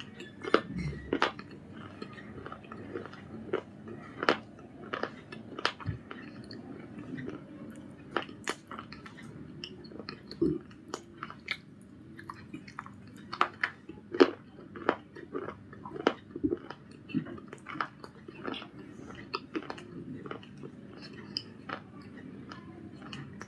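A hard, crunchy Punjab biscuit being bitten and chewed close to the microphone. Irregular sharp crunches come every second or so, with quieter chewing between them.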